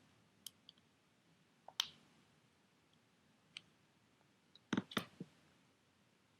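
Scattered small sharp clicks and taps of tools and tiny parts against an iPhone 8 during reassembly, with a cluster of louder clicks about five seconds in.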